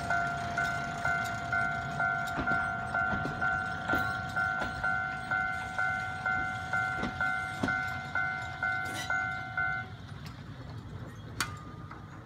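Railway level-crossing warning bell ringing at about two strikes a second, each strike dying away, then stopping about ten seconds in. Underneath is the low running of the departing Kiha 702 diesel railcar, and a single sharp click comes near the end.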